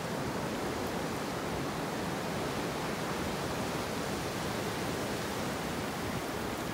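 Steady rush of ocean surf breaking and washing up the beach, an even hiss with no separate events.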